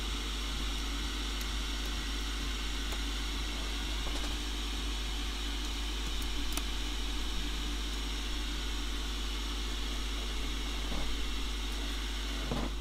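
Steady electrical hum and fan-like hiss of bench equipment, with a few faint light clicks as the iPhone's logic board is handled and seated in its housing with tweezers.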